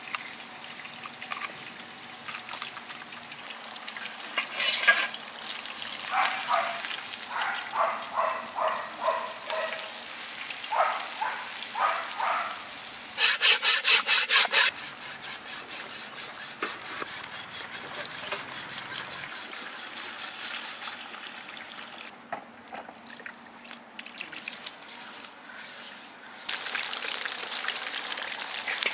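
Semolina-coated sole fish deep-frying in a wide pan of hot oil, a steady sizzle that grows louder near the end. About halfway through, a cleaver is scraped rapidly back and forth across a wooden chopping stump for a second or two.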